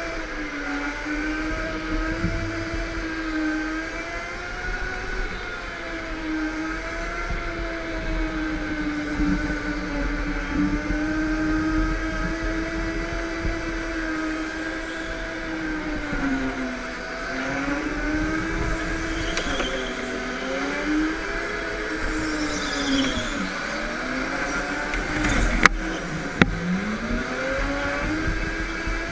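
Go-kart motor heard from the driver's seat, running as one pitched note with overtones that holds steady, then dips and climbs again and again as the kart slows for corners and speeds back up. Two sharp clicks come near the end.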